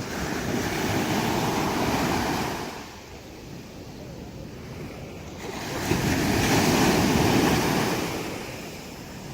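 Sea waves breaking on a beach, surging twice: one wave rolls in over the first few seconds and a second, slightly louder one about six seconds in, with a lower wash between them.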